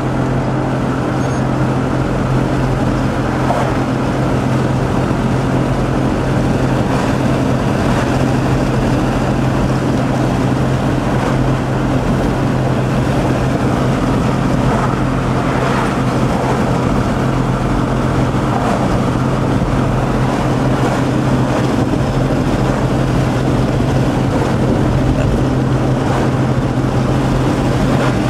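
Steady low drone and rushing noise of a car, heard from inside the cabin with a window rolled down.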